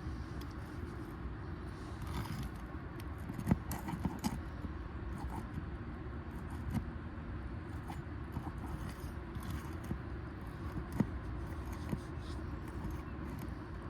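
Metal roof snake working under asphalt shingles to break the seals and reach the nails: light scraping with a few sharp metallic clicks, over a steady low rumble.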